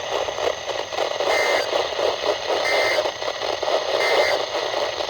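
Three short identical bursts of NOAA Weather Radio SAME digital data, buzzy two-tone screeches about a third of a second each, evenly spaced a little over a second apart. Their shortness marks them as the end-of-message code sent three times to close an alert test. Steady radio static and hiss run underneath.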